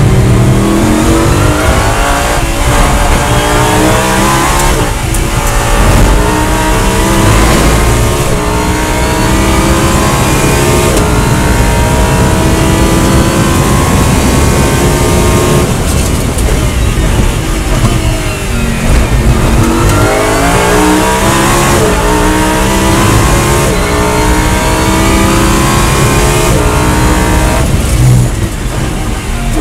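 Lamborghini Huracán Super Trofeo Evo2's V10 race engine heard from inside the cockpit, accelerating hard through the gears: the revs climb, drop at each upshift and climb again. About halfway through and again near the end the revs fall away under braking and downshifts, then pick up once more.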